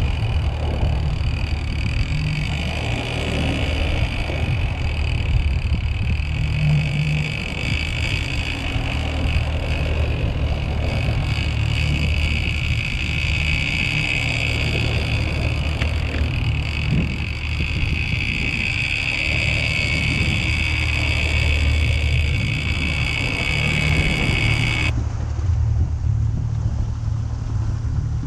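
Boat engine running steadily: a low drone with a higher steady whine over it, which cuts off abruptly near the end.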